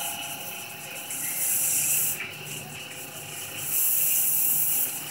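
CNC milling machine running with flood coolant spraying: a steady spindle whine under a loud hiss that swells and fades twice, each spell lasting about a second.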